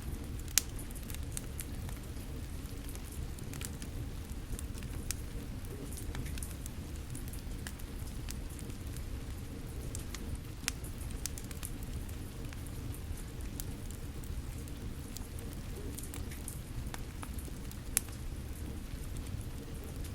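Wood fire crackling, with scattered sharp pops, three of them louder: about a second in, in the middle and near the end. Under it, a steady low rush of rain.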